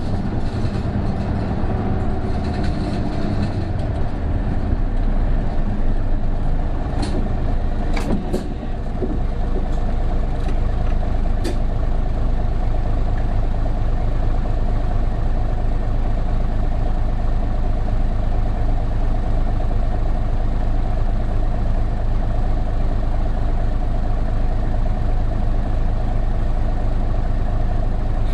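Onboard running sound of an Isuzu Erga (PJ-KV234L1) city bus's turbo-diesel inline-six: a steady low drone, with a few sharp clicks or rattles about a third of the way in and a brief drop in level near the same point.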